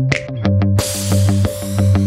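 Electronic background music with a steady beat and deep held bass notes; the sound grows fuller and brighter about a second in.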